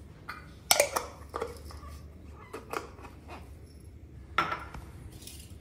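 Metal kitchenware being handled: a few separate light clinks and knocks of a metal cooking pot and a small steel plate of whole spices on a stovetop, the loudest just under a second in.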